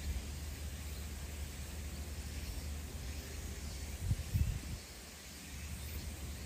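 Outdoor ambience: a steady low rumble under a faint hiss, with a brief low thump about four seconds in.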